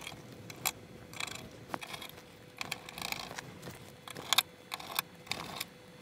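Hand screwdriver driving radiator mounting screws into a PC case panel: irregular small clicks and short scrapes of screw and driver tip against metal, with one sharper click about four seconds in.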